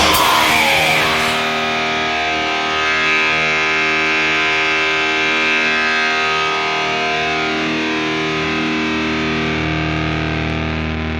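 Distorted electric guitar letting long chords ring out, changing notes a few times and slowly fading, at the close of a heavy metal song.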